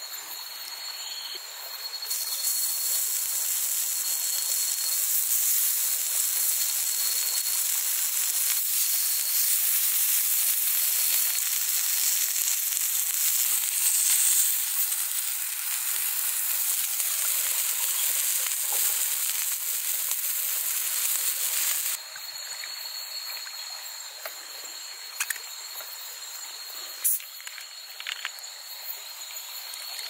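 Meat sizzling as it cooks, a loud steady hiss that starts suddenly about two seconds in and cuts off abruptly about two-thirds of the way through. Before and after it, crickets trill steadily on one high note, with a few light clicks near the end.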